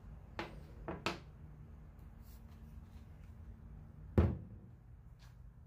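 Hard objects handled in a workshop: a few light clicks in the first second, then one loud thunk about four seconds in, over a low steady hum.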